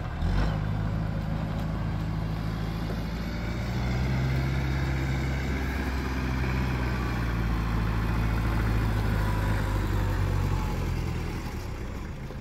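Kubota M8200 tractor's four-cylinder turbo diesel engine running steadily as the tractor drives, with a slight change in engine pitch about four seconds in.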